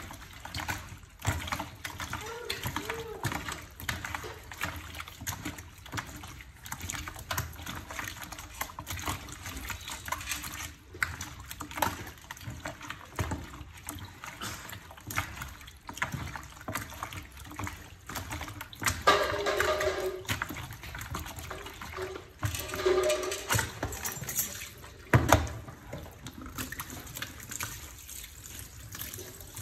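Hands sloshing and rubbing raw frog pieces in water in a plastic basin: irregular splashing and wet squelching, louder for a while past the middle.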